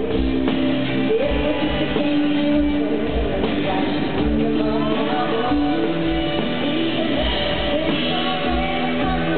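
Live band playing a country-rock song: a woman singing lead into a handheld microphone over electric guitar and a steady kick drum, recorded from the audience.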